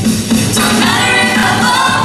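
A group of voices singing a pop song with band accompaniment and a steady beat.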